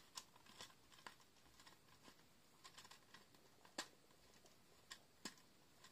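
Near silence: room tone with a few faint, scattered sharp clicks and taps.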